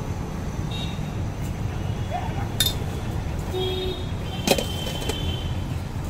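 Steady road-traffic rumble, with two sharp metallic clinks of stainless-steel pot lids being handled, and a brief high ring between them.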